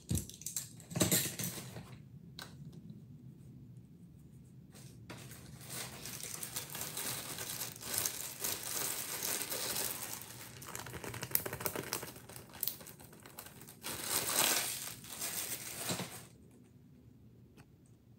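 Clear plastic bag crinkling as it is handled, in rustles that rise and fall for about ten seconds, the loudest near the end, after a few small knocks; it stops about two seconds before the end.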